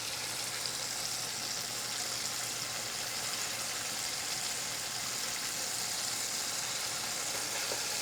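Flour-coated chicken pieces deep-frying in hot vegetable oil: a steady, even sizzle, with a faint low hum underneath.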